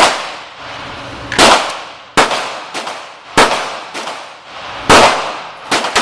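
Smith & Wesson M&P .22 rimfire rifle fired in a steady string: five loud sharp cracks about one to one and a half seconds apart, each trailing off briefly, with a few fainter sharp cracks in between.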